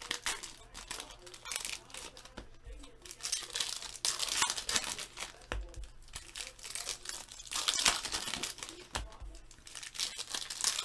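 Foil trading-card pack wrappers crinkling and tearing open, with the stiff chromium cards slid and flipped through by hand, in irregular bursts.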